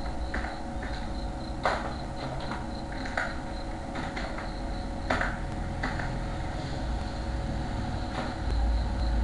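Computer keyboard keys pressed now and then, single clicks spaced irregularly about a second apart, over a steady low hum.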